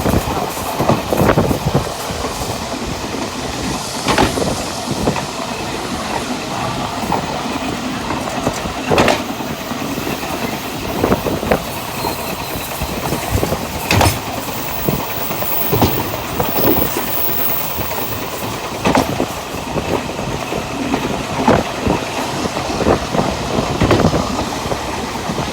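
A Taiwan Railways Chu-Kuang express train running, heard from the open observation platform at the rear of its lounge car. Its wheels make a steady rumble on the rails, with a sharp clack about every two to three seconds.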